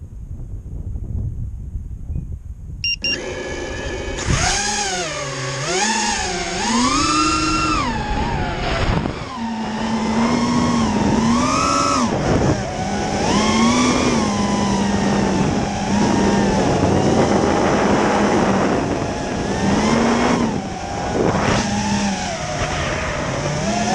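Martian II FPV racing quadcopter's brushless motors spinning up about three seconds in after a low rumble, then whining through flight with the pitch rising and falling as the throttle changes.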